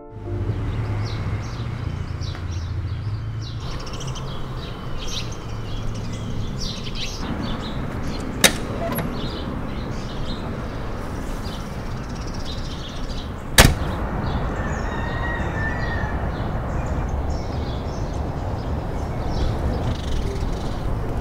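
Outdoor background with birds chirping. A sharp click about eight and a half seconds in, then the door of a Ford Ranger pickup slamming shut about five seconds later.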